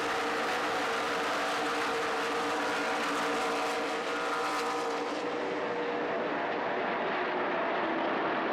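NASCAR Sprint Cup stock cars' V8 engines running at racing speed as cars pass on the track. The engines of several cars blend into one steady, dense wall of sound.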